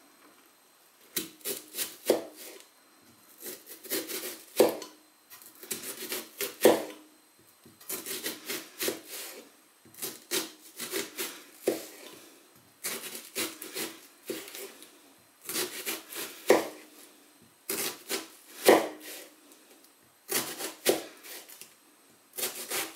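A sharp kitchen knife slicing horizontally into a halved onion on a cutting board: about ten separate slicing passes, each a second or so of crisp rasping as the blade goes through the onion's layers.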